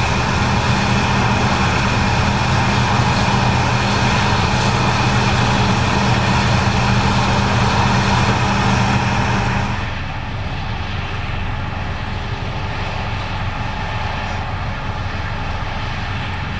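Case IH 8250 Axial-Flow combine running while harvesting corn: a steady engine drone with a hiss of machinery over it. About ten seconds in, the sound abruptly drops in level and loses most of its hiss, then carries on steadily.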